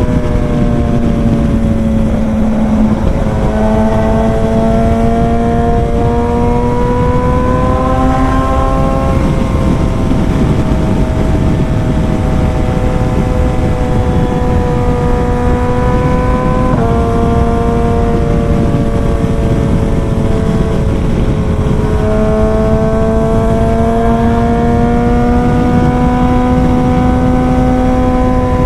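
BMW S1000 XR inline-four engine with a full exhaust system, running under way. Its pitch climbs slowly as the bike pulls and jumps suddenly a few times at gear changes, over heavy wind rush.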